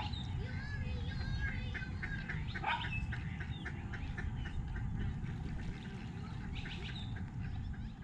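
Wild ducks calling, many short quacks and calls overlapping, one louder call near three seconds in, over a steady low rumble.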